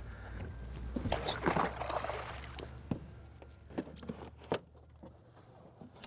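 Water splashing and sloshing as a hooked smallmouth bass thrashes at the surface beside the boat, followed by a few short, sharp knocks about halfway through.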